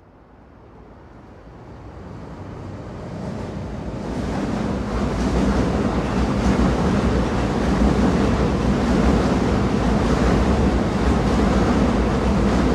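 Moving train's steady rumble and rattle on the rails, fading in from faint over the first few seconds and then holding steady.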